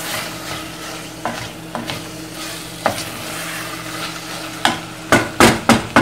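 Wooden spoon stirring diced tomatoes in a stainless steel pot over a low sizzle, the cold, watery tomatoes having cooled the pan. Near the end the spoon knocks sharply on the pot four or five times.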